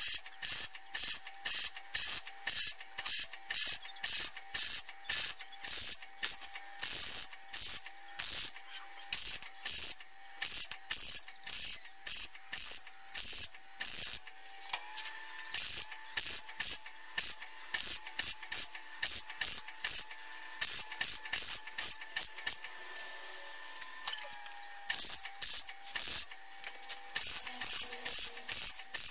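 MIG (semi-automatic) welder arc crackling and sizzling as a steel muffler pipe seam is stitch-welded: short bursts about twice a second, a longer unbroken run in the middle, then short bursts again.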